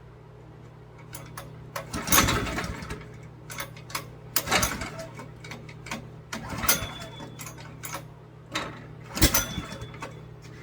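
Honda GX160 pressure-washer engine being pull-started by its recoil starter cord: four pulls about two and a half seconds apart, the engine cranking briefly each time without starting.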